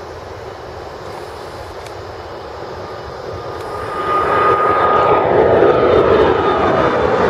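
Twin-engine business jet taking off at full power. Its jet noise swells sharply about four seconds in as it lifts off and climbs past, with a steady whine and then tones that fall in pitch as it goes by.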